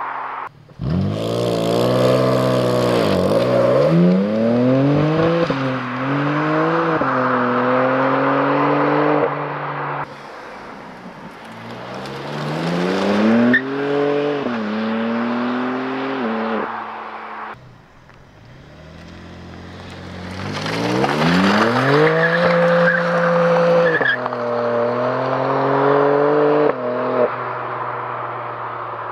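BMW M2 G87's twin-turbo inline-six revving hard, its note climbing and dropping again and again as the car is driven sideways with tyre squeal. The sound comes in three loud runs with quieter stretches between them.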